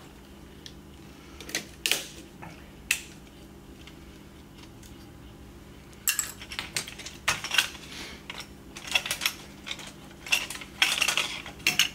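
Small screwdriver working a retaining clip off a Polaris 380 pool cleaner's plastic drive housing: a few sharp clicks, then from about six seconds in a run of light clicking and clattering as small plastic parts and the tool are handled and set down.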